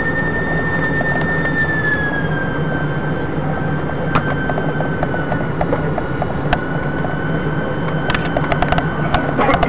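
Jet airliner engines and airflow heard inside the cabin on landing approach: a steady roar under a low hum and a high engine whine. The whine dips slightly in pitch about two seconds in and again around five seconds. A few sharp clicks come near the end.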